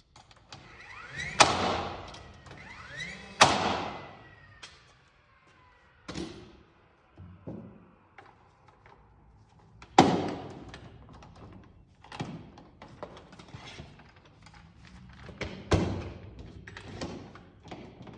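Tools and lumber being worked on a wooden floor truss: four loud, sharp bangs several seconds apart, each echoing, with quieter knocks and taps between.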